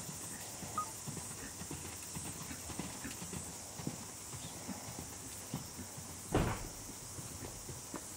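Hoofbeats of a horse cantering on a sand arena surface: soft, irregular footfalls, with one short louder sound about six seconds in.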